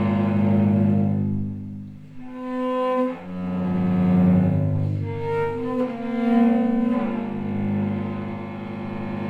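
Cello playing slow, long bowed notes that swell and fade, with a drop in level about two seconds in before the notes rise again.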